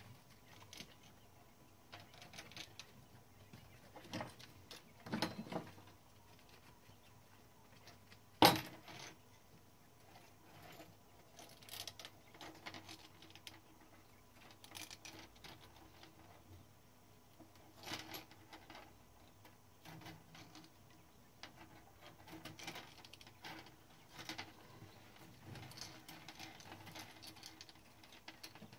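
Scattered small metallic clicks and light taps from hand work on a Klein Adler 2 typewriter's mechanism while its steel-wire tension spring is being fitted, with one sharp, much louder click about eight seconds in.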